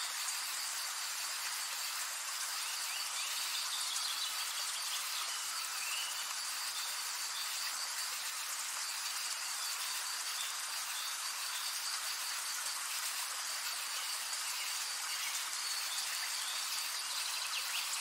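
Katydids (bush crickets) calling in a continuous, steady high-pitched insect chorus.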